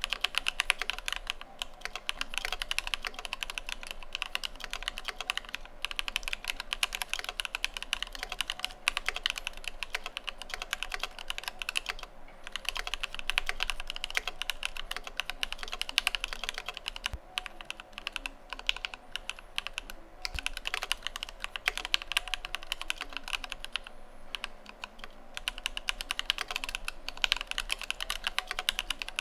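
Continuous fast typing on a mechanical keyboard: an Idobao ID80 v1 with linear Alpaca V2 switches lubed with GHv4, screw-in stabilizers and PBT Cherry-profile keycaps. There are a few brief pauses in the run of keystrokes.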